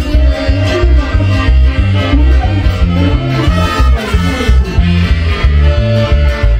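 Loud Latin dance music with a steady beat and a bass line that steps from note to note under several instruments.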